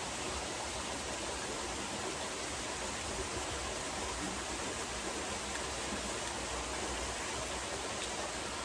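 Steady hiss of water falling from a rock waterfall into a swimming pool.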